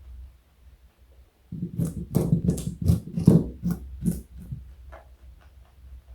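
Rabbit crunching a carrot: a run of about eight crisp crunches, two or three a second, then fainter chewing near the end.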